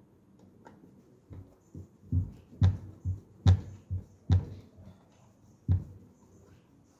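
Screwdriver working a screw in the corner of a plastic licence plate holder on a van's rear door: a run of clicks and dull knocks, about six close together in the middle, with one more near the end.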